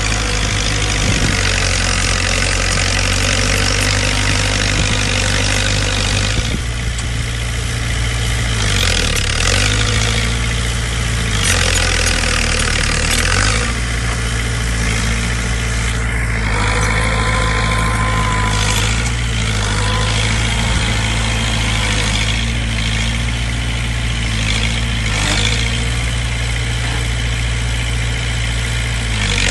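Heavy construction-machine diesel engine running steadily, its speed dipping and picking back up twice under load.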